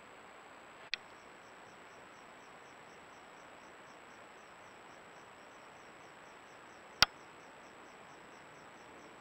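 A cricket chirping in a fast, even pulse of about four high chirps a second over a steady faint hiss and high electronic tone. A sharp click comes about a second in, when the chirping starts, and a louder click about seven seconds in.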